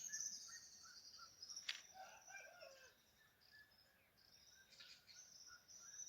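Faint countryside ambience: a steady high insect trill that fades out mid-way and comes back near the end, with scattered short bird chirps and one short falling call about two seconds in.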